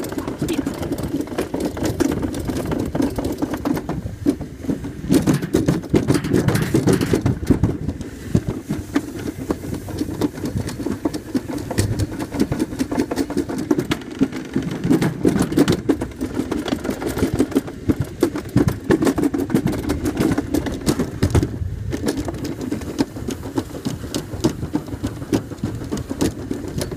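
Summer toboggan sled rumbling and rattling as it slides fast down a metal trough, with a dense stream of small knocks. It grows louder in stretches and eases again.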